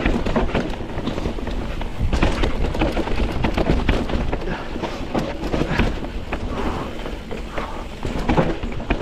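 Mountain bike riding down a dirt trail: tyres rolling over the ground with frequent knocks and rattles from the bike, and wind buffeting the microphone.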